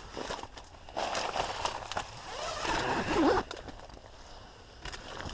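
A tent door zip being undone in several short pulls, the loudest about three seconds in, with the tent fabric rustling.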